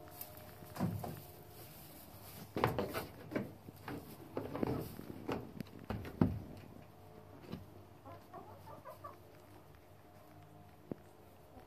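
Chickens clucking on their roosts: a string of separate calls over the first seven seconds, then a quick run of small clucks about eight seconds in.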